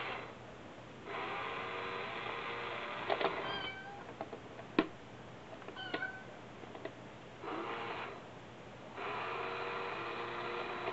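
Toy cat coin bank running in several bursts as its lid opens and the little cat inside pops out, while black cats paw at its coin plate, with sharp clicks in between and short meow-like tones.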